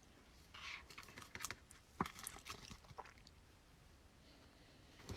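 Faint rustling and light clicks of trading cards being handled and flipped through, with a sharper tap about two seconds in.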